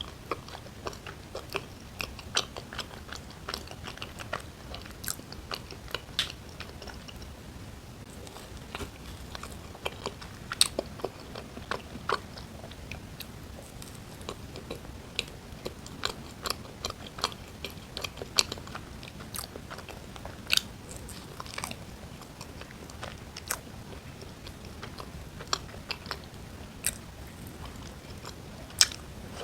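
Close-miked eating: biting and chewing, with many small, sharp, irregular clicks.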